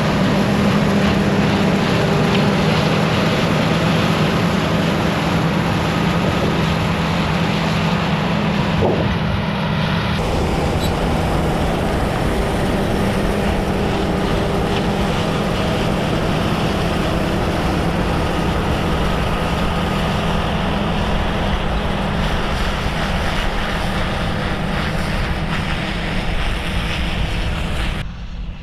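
John Deere combine harvester running close by while harvesting soybeans: a loud, steady engine drone under the rush of the threshing and separating machinery. A thin high whine over it stops about ten seconds in.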